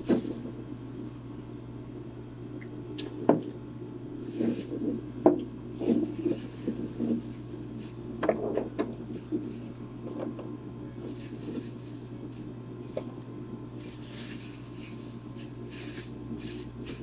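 Scattered light clicks, taps and rustles of a plastic bag, food containers and eggs being handled on a table, over a steady low hum.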